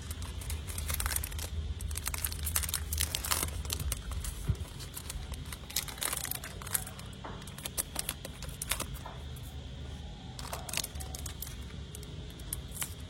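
Handling of a Zippo lighter and its packaging: scattered sharp clicks and rustling over a steady low hum.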